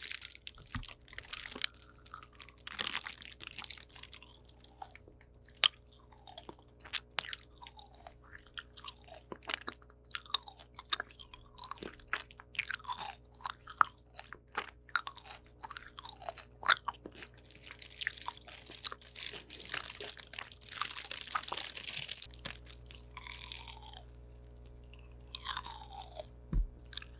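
Close-miked chewing and biting of a Dubai chewy cookie: irregular crisp crunches and wet mouth clicks, thickest a little past the middle.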